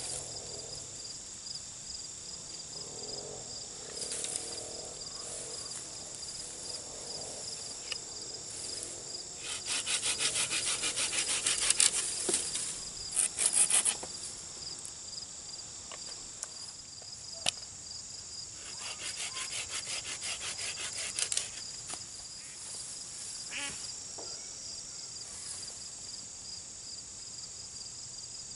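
A small hand saw cutting a wooden stick in two runs of quick, even back-and-forth strokes, about ten seconds apart, with a few single knocks of wood between. Insects trill steadily in the background.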